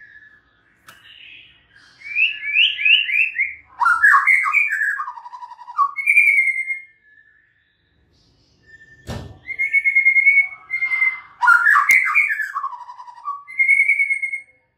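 White-rumped shama singing two loud phrases of clear whistles and quick falling notes, with a short pause between them. A single thump comes just before the second phrase.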